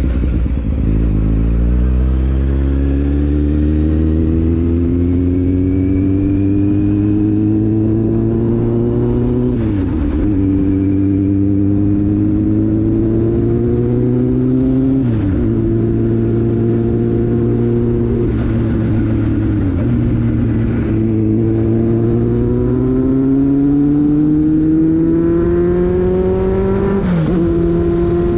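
Kawasaki Z750 inline-four motorcycle engine under way, its note climbing steadily as the bike pulls. The revs dip sharply and briefly four times at gear changes.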